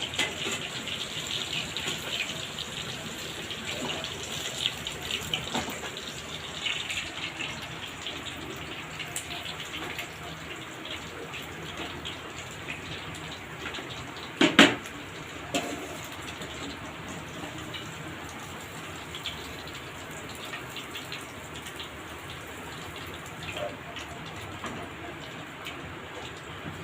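Hot oil sizzling and crackling around pieces of chicken 65 deep-frying in a pan. The crackle thins out over time, the sign that the pieces are nearly done. One sharp knock comes about halfway through.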